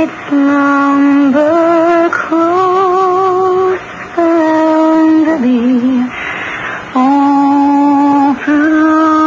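A woman singing a slow melody in long held notes, with short pauses for breath between phrases.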